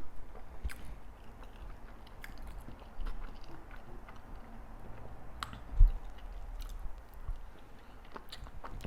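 Close-up chewing of fried tilapia and fried plantain, with wet mouth smacks and small crunches scattered throughout. One louder thump about six seconds in.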